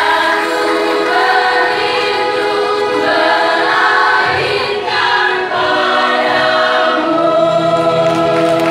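Choir singing, holding long chords in several parts.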